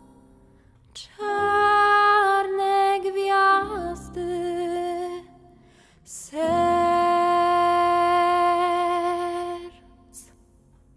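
A young woman's solo singing voice on the song's final notes: a short phrase, a lower note, then one long held note of about three seconds with a slight vibrato, with audible breaths before the phrases.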